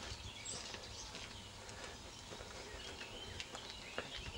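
Footsteps on a paved lane, with birds chirping in the background and a low rumble underneath.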